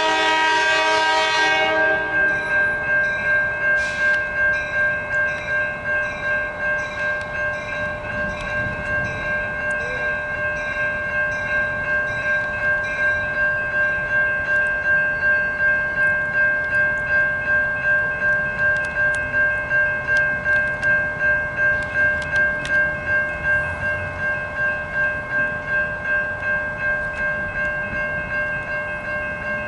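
A train's multi-chime air horn sounds and ends about a second and a half in. Under it, railroad crossing bells ring with an even beat of about two strikes a second, signalling that the crossing is active with the gates down.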